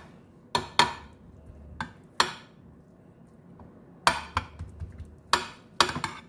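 Metal serving spoon clinking and scraping against a baking dish while ground beef is spread and pressed into a layer: a series of sharp, irregular clinks, several in quick pairs.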